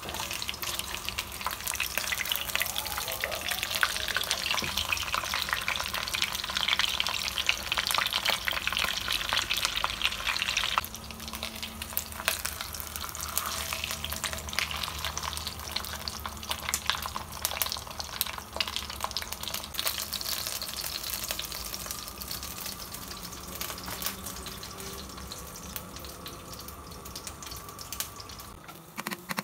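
Whole red snapper shallow-frying in hot oil in a pan: a dense crackling, spitting sizzle. It drops suddenly to a quieter sizzle about eleven seconds in and fades toward the end.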